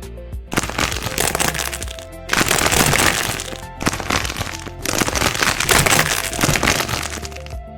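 Dense crackling, crunching noise in four long bursts, each made of many tiny cracks, over soft background music.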